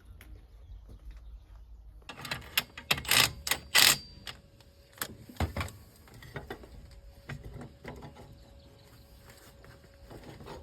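Scattered sharp clicks and knocks of metal parts and tools being handled, with a cluster of louder clanks about two to four seconds in.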